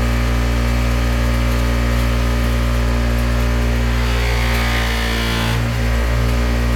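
Electric sander running with a steady motor hum; about four seconds in, a rasping sound rises over it as the maple knife handle is pressed against the abrasive.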